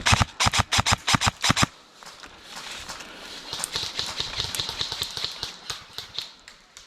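Airsoft rifle firing a rapid string of about ten shots, roughly six a second, for under two seconds. Lighter, irregular crunching footsteps follow.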